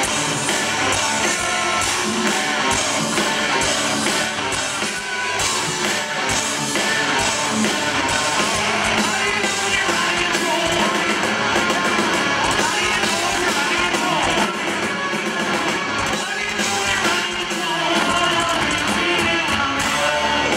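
Live rock band playing loud through a PA, heard from among the audience: electric guitars, drums and a singing voice.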